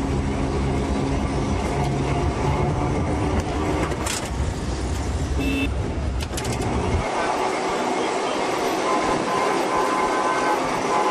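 Tram and street traffic with a vehicle horn tooting. A steady low rumble runs until about seven seconds in, then cuts off abruptly, leaving a thinner, higher mix; two sharp clicks come in between.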